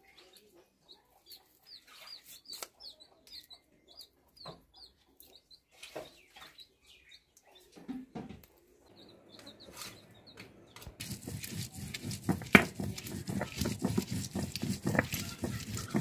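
A small bird chirps in a quick series early on, over faint soft clicks from feathers being pulled off a scalded chicken. From about 11 seconds in, a stone roller grinds garlic and green chillies on a stone slab (sil-batta), making a loud, rough scraping that lasts to the end.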